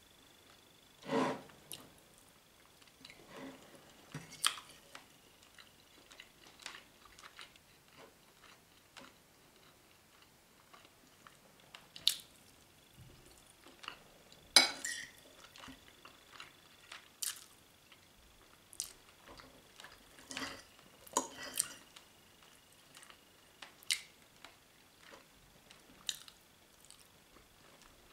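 Chewing, with scattered clicks and clinks of cutlery on a plate; the sharpest clink comes about halfway through.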